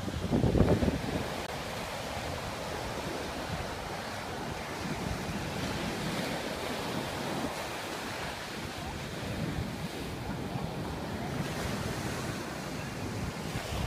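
Bay of Bengal surf breaking and washing up a sandy beach as a steady rushing wash, with wind rumbling on the microphone, loudest in the first second.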